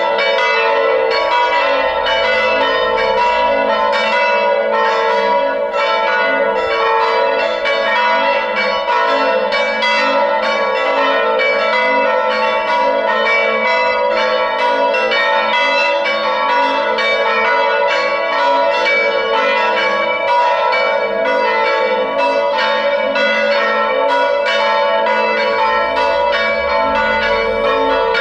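Several church bells ringing together in a Sunday peal. Rapid, overlapping strikes keep their tones sounding continuously.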